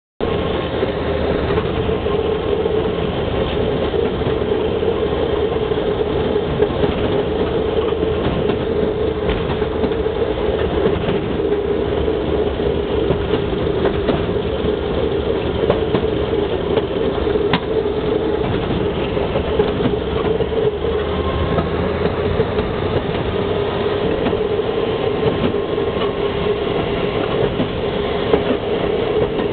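Railroad speeder (track motorcar) running steadily along the rails, its engine close by, with the steel wheels giving occasional clicks over the rail joints.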